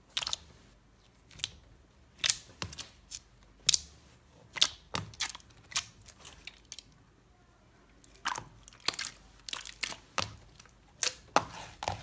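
Slime being pressed and worked by hand, giving irregular sharp pops and crackles, several a second at times, with short quiet gaps between.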